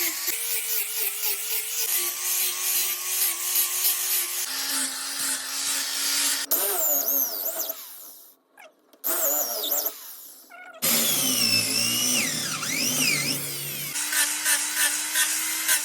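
Electric power tool, such as a sander or drill, running against the wooden cricket bat, with a steady motor tone over a rasping grind. The pitch changes abruptly a few times, and there is a brief drop-out about halfway through.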